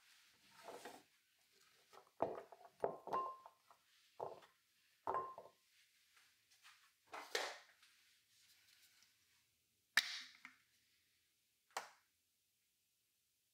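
Kitchen prep handling: a glass mixing bowl and a chef's knife set down on a wooden cutting board, giving short knocks and a brief glassy ring, then a sharp click about ten seconds in.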